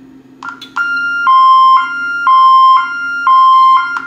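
Honeywell 6160RF alarm keypad's built-in sounder: a few quick key-press beeps, then a loud two-tone alarm alternating between a higher and a lower tone about every half second, the lower tone louder. It is the keypad sounding a panic alarm (zone 95), and stops just before the end as the code is keyed in.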